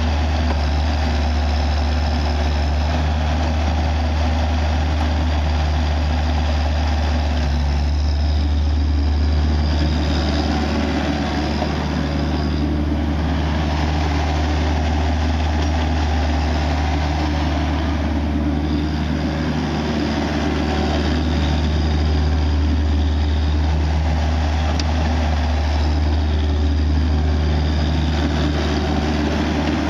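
New Holland EC45 mini excavator's Mitsubishi four-cylinder diesel engine running steadily with a deep, even hum, shifting only slightly now and then.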